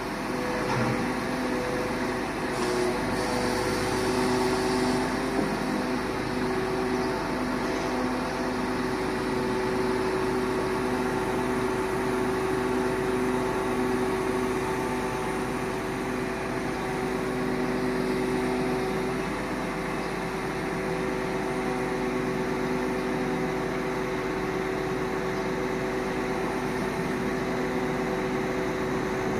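Truck engine running steadily to drive the hydraulics of a truck-mounted knuckle-boom crane unloading concrete blocks, a constant hum of several pitches. A brief hiss comes about three to five seconds in.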